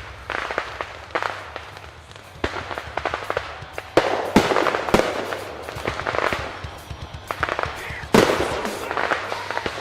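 Fireworks going off in quick succession: a string of sharp bangs and crackles, with the loudest bursts about four, five and eight seconds in.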